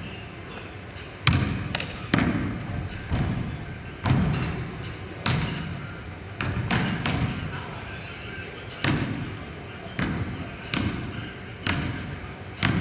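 A basketball bouncing on a hardwood gym floor, about once a second at an uneven pace. Each bounce is a sharp thud that echoes through the hall.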